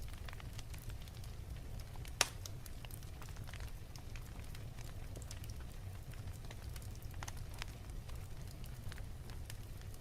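Fireplace fire crackling: a steady low rumble with scattered small pops, and one sharper pop about two seconds in.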